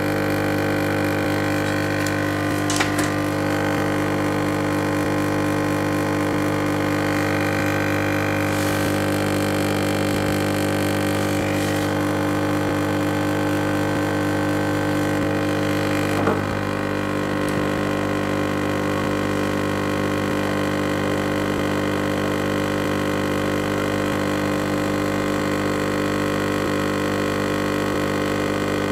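Hot-air rework gun's blower running with a steady hum while a surface-mount resistor on the TV mainboard is heated to be changed, with a short click about three seconds in and another about sixteen seconds in.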